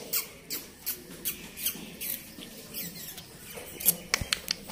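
Shih Tzu puppies squeaking in short, high-pitched squeaks that come about every half second, followed by a quicker run of sharp ticks near the end.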